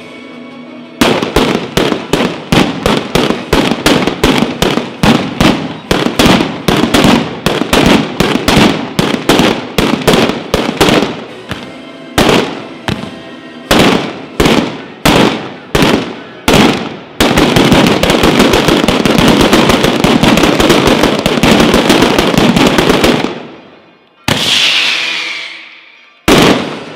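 Ground firecracker display (batteria alla bolognese): a chain of loud, sharp firecracker bangs going off a few per second, with uneven gaps, then merging into a dense continuous crackling roll for about six seconds that cuts off suddenly. Two single heavier blasts follow near the end.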